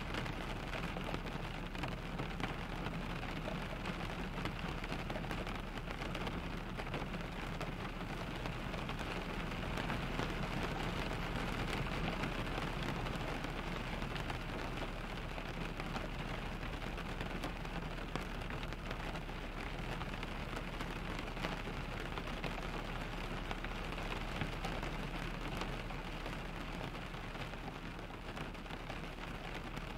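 Steady rain pattering on a car's windshield and roof, heard from inside the cabin, with a constant low rumble underneath.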